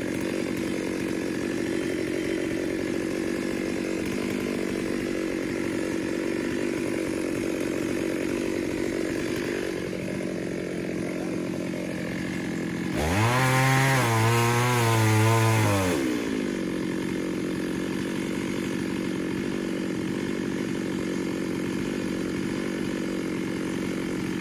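Stihl chainsaw idling steadily, then revved hard at about the middle for roughly three seconds. The engine speed wavers at full throttle before it drops back to idle.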